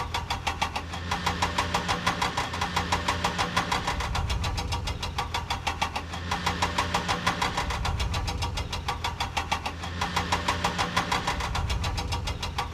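Vehicle engine running steadily in a fast even chug, about five beats a second, over a low hum.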